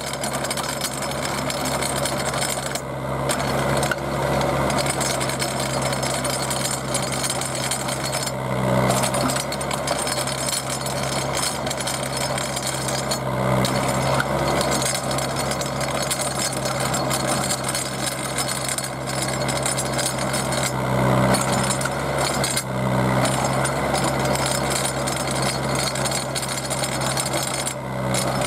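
Small auger drill rig running steadily, its engine humming under load while the auger turns and grinds into the ground with a constant rattle; the engine note swells briefly a few times.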